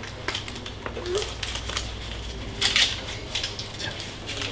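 Banknotes and a wallet being handled: a series of short, crisp paper rustles and clicks, the loudest a little past halfway, over a steady low hum.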